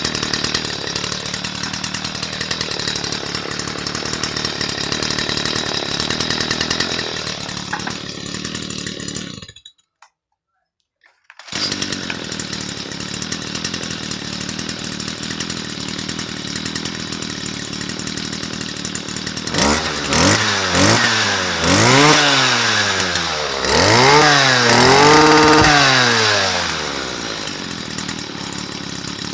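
Stihl FS55C brush cutter's small two-stroke engine idling, with a gap of total silence about ten seconds in. Near the end it is revved up and let back down about five times, then settles back to idle.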